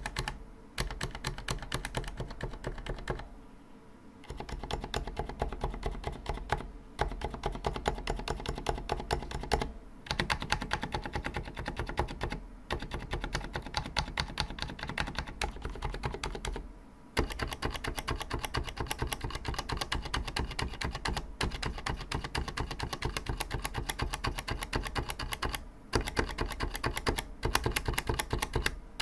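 Typing on a Vortex Cypher US1 68-key mechanical keyboard with Cherry MX Silent Red switches and PBT keycaps: a dense, rapid run of key clicks with a few brief pauses.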